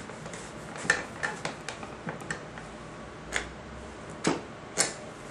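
Plastic chuck collar of a Nishigaki drill-sharpener's bit holder turned by hand to clamp the drill bit: a string of light, irregular clicks, about nine in all.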